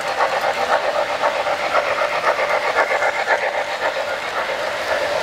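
3-rail O-scale model trains running on the track, a steady rapid clatter of wheels over the rails with a hissing steam-locomotive sound.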